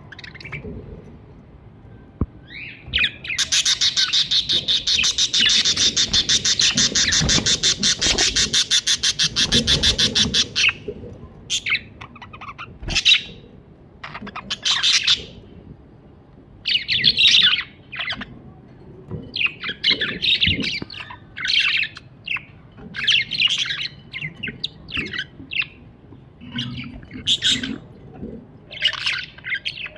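Budgerigar chirping and warbling: a few seconds in, a long, rapid, buzzy pulsed chatter lasting about seven seconds, then short separate chirps in quick groups.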